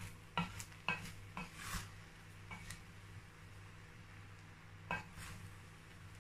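Wooden spoon stirring and fluffing cooked rice in a pot, with a few short scrapes and knocks against the pot in the first two seconds and one more about five seconds in. A steady low hum runs underneath.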